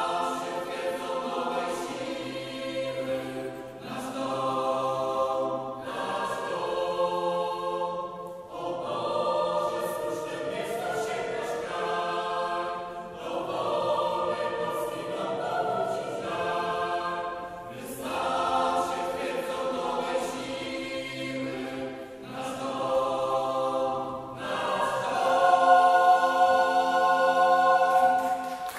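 Mixed choir singing a sacred song in chords, in phrases of about two seconds with short breaks for breath, accompanied by a youth string orchestra. The piece closes on a long, louder held final chord in the last few seconds.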